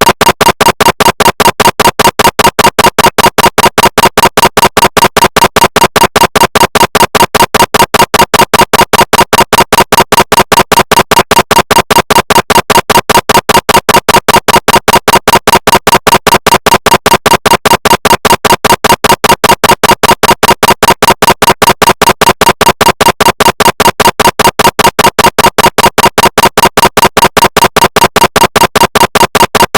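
Recreation of a GE SIGNA Victor MRI scanner running a scan sequence: a loud, rapid, perfectly even train of knocking pulses with a buzzing mid-pitched tone. This is the gradient-coil pulsing of an MRI scan, imitated rather than recorded from a real machine.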